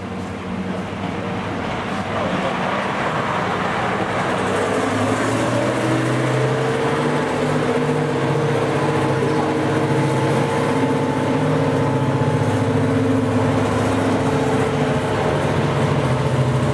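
Class 55 Deltic diesel locomotive's twin Napier Deltic two-stroke engines running under power as the locomotive passes. The sound grows louder over the first few seconds, then holds as a steady hum of several held tones.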